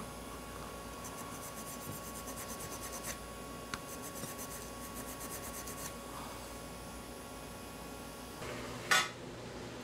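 Hand deburring of a freshly machined aluminium bracket: a small abrasive pad rubbed over its cut edges in quick short strokes, over a faint steady high whine. A short louder noise comes near the end.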